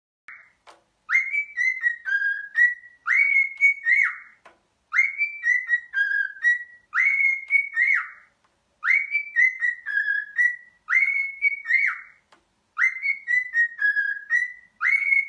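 A short whistled tune of several notes, a quick rise and then a few falling and held notes, repeated about every two seconds.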